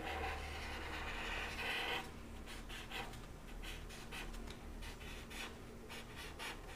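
Marker pen scratching on paper as an outline is traced: one continuous stroke for about the first two seconds, then a run of short, quick strokes.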